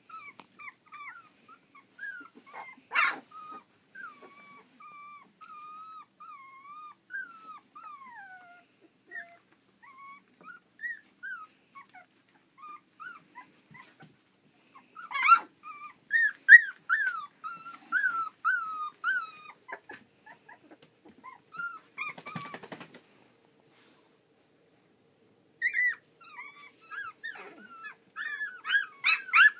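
A litter of 3½-week-old Nova Scotia duck tolling retriever puppies whimpering and squeaking, many short high-pitched cries bending up and down in pitch. A busier run of cries comes about halfway through. After a lull of a couple of seconds, a dense burst of yips comes near the end.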